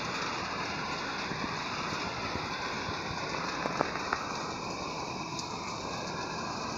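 Heavy rain falling, a steady even hiss, with a few sharp ticks about four seconds in.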